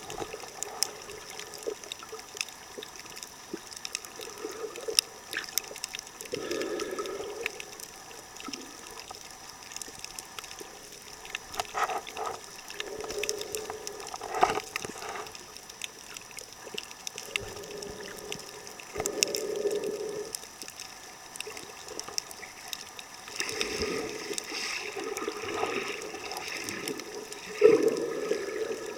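Muffled water noise picked up by a camera held underwater while snorkeling over a reef, with scattered faint clicks and pops and a dull swell of sound every few seconds.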